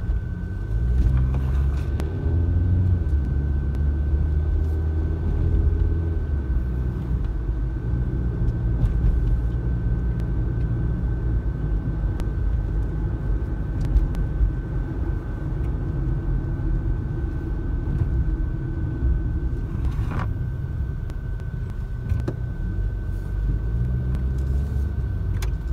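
Car engine and road noise heard from inside the cabin while driving, the engine note rising as the car gathers speed about a second in and again near the end. A faint steady high whine runs underneath.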